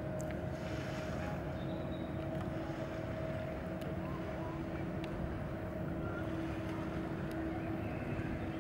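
Distant motorboat engines droning steadily across open water, over a low rumble of wind.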